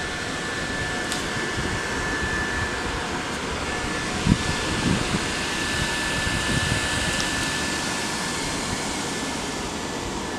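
Electric inflation blower running steadily, a constant rush of air with a thin whine, keeping a giant inflatable elephant filled. A few soft low thumps come about halfway through.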